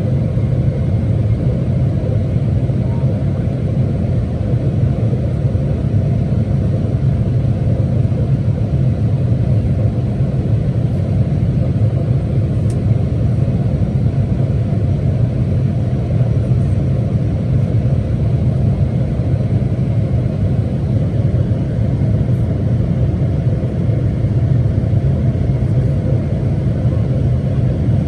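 Steady low rumble of a Boeing 777-300ER airliner on its landing approach, heard as constant cabin noise of airflow and engines.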